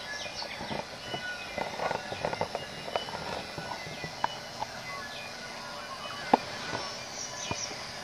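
New Zealand bellbirds singing: short, clear bell-like notes at several pitches, mixed with scattered sharp clicks, one louder click about six seconds in.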